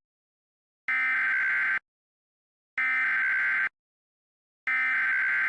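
Emergency Alert System SAME header: three bursts of digital data tones, each nearly a second long and about two seconds apart. They encode the alert's origin, event and area, and signal that an emergency alert is about to begin.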